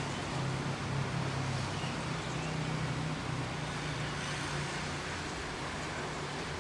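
Light drizzle falling, a steady even hiss of rain, with a low steady hum underneath.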